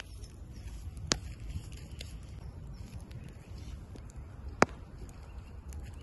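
Wood fire in an outdoor fire pit crackling, with two sharp pops, about a second in and again later, and a few fainter ticks over a low steady rumble.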